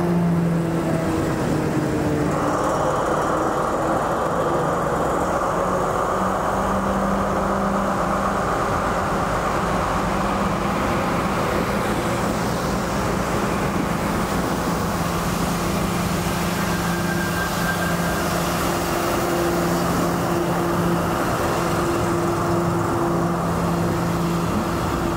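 Staten Island Railway LaserTrain passing at speed: the diesel engines of its Brookville BL20G locomotives droning steadily with the rumble of steel wheels on the rails. A tone falls in pitch in the first two seconds as a locomotive goes by.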